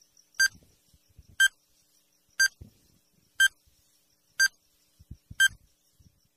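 Countdown timer sound effect: short high-pitched beeps, one every second, about six in a row.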